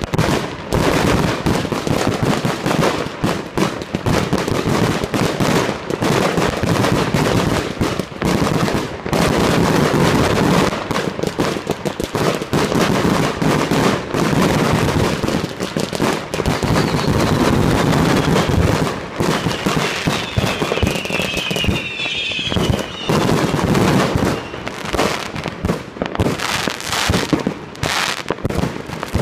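Many New Year's fireworks going off at once: a dense, continuous barrage of bangs and crackling. A few high whistles glide in pitch about two-thirds of the way through.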